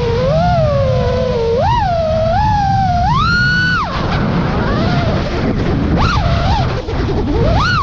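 FPV quadcopter's brushless motors and T-Motor T5143S propellers whining, the pitch rising and falling with the throttle. About four seconds in the whine drops away to a rushing noise, with brief throttle punches, then climbs again near the end.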